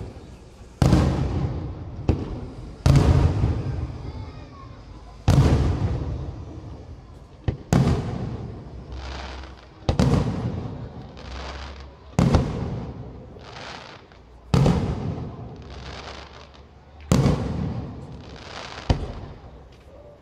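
Aerial firework shells bursting in the sky, about nine sharp bangs roughly two seconds apart, each trailing off over a second or two.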